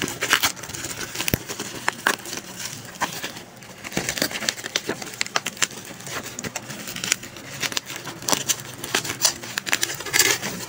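Black plastic bubble-wrap packaging being handled and pulled open by hand, crinkling and crackling with many sharp, irregular clicks.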